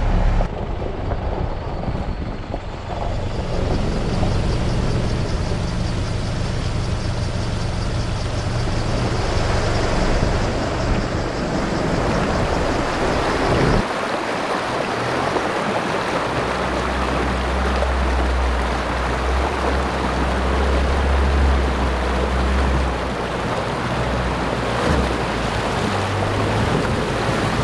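Fast river water rushing and churning around an Isuzu four-wheel drive as it wades slowly through a deep crossing, its engine running low under the water noise. The low rumble drops away about halfway through and returns heavier.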